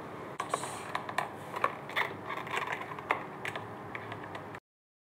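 Irregular light clicks and taps, a few a second, from hands and a small tool working plastic trim pieces off the underside of a car's rear bumper. The sound cuts off suddenly shortly before the end.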